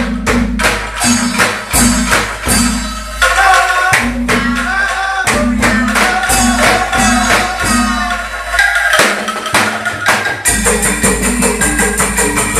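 Kenthongan ensemble: bamboo kentongan tubes struck in an interlocking rhythm with an angklung, playing a lively tune. About ten seconds in the beat becomes denser and more even.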